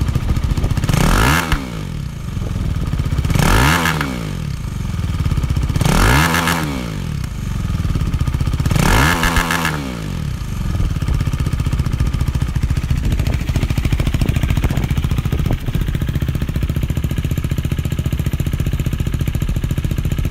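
2019 KTM 390 Duke's single-cylinder engine revved four times with quick throttle blips, each rising and falling back within about a second, then settling into a steady idle for the last half.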